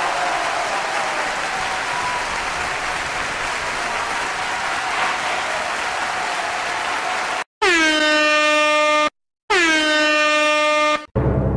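Two blasts of an air horn, each about a second and a half with a brief gap between, the pitch sagging slightly at the start of each and then holding steady. Before them, several seconds of a steady rushing noise.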